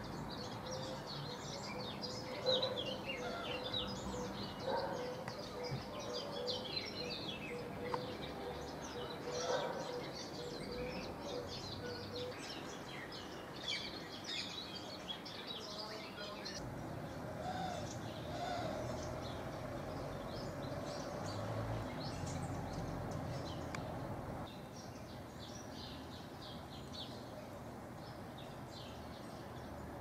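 Small birds chirping and twittering in quick, overlapping calls, with a faint steady hum during roughly the first twelve seconds.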